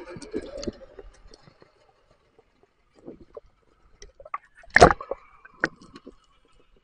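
Muffled underwater sound from a submerged camera: scattered gurgles, pops and knocks of water against the housing, with one loud knock a little under five seconds in.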